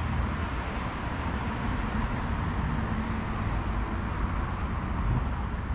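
Steady outdoor town ambience: an even hiss over a low rumble, with no distinct events.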